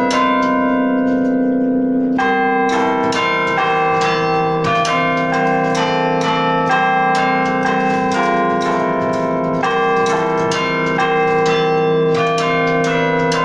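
An 18-bell carillon played from its baton keyboard: bronze bells struck one after another, ringing out a tune with their notes ringing on and overlapping. There is a brief lull in new strikes in the first two seconds while the last notes ring on.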